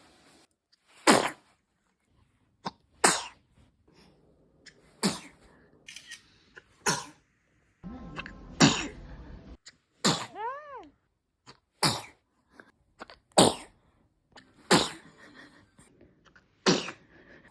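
A run of about ten sharp sneezes, one every one and a half to two seconds. A short pitched vocal sound that rises and falls in pitch follows one of them, a little past halfway.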